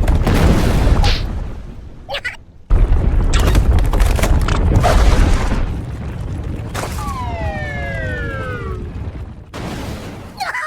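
Animated cartoon sound effects: loud, low booming rumbles, broken by a short gap about two seconds in, then a tone gliding steadily downward for about two seconds.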